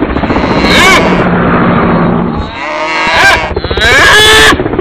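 Cattle mooing about three times in fairly high calls that rise and fall in pitch, over a continuous rough, fluttering noise.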